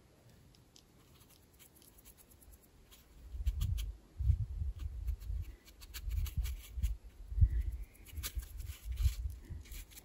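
Near quiet, then from about three seconds in, irregular low thumps and rumbles on a clip-on lavalier microphone, with light scratchy ticks of a brush laying watercolour on paper.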